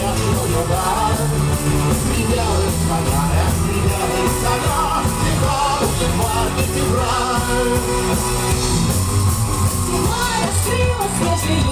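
A live rock band playing, with a steady drum beat and bass under a wavering lead melody.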